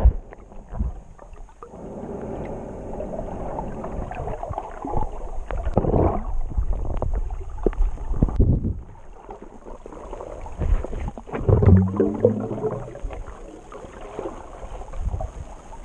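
Muffled underwater sound picked up by a camera in a waterproof housing as the swimmer moves: water sloshing and gurgling, with irregular knocks on the housing. A short low hum comes in about three-quarters of the way through.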